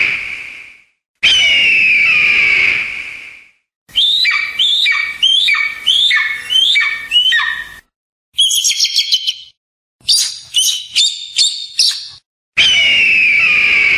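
Eagle calls: a long, falling scream that dies away, then a second one. Next comes a run of about eight short, falling chittering notes, a burst of high squeals, and another quick series of short calls. A further long falling scream begins near the end.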